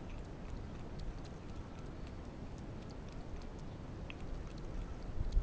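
Cat lapping milk: faint, irregular small clicks over a low rumble, with a low thump near the end.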